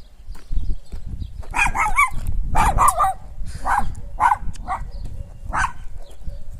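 Small dog giving a run of short, high-pitched yips and whines, about eight in a few seconds, over a low rumble.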